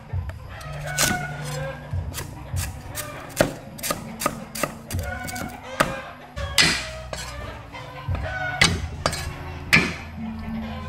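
Sharp, irregular knocks and taps, about two a second, over background music.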